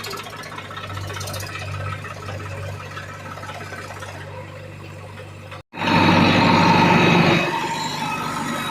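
Heavy diesel engine running steadily at low revs. About two-thirds of the way through, the sound cuts out for an instant and comes back louder for a second or so before settling.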